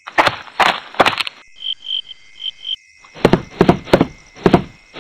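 A series of heavy thudding footstep sound effects, three close together at the start and about five more from three seconds in. About two seconds in comes a quick run of five short high beeps, and a steady insect trill runs behind it all.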